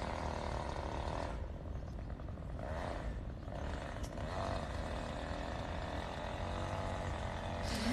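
Faint, steady low rumble of outdoor background noise, with no distinct events.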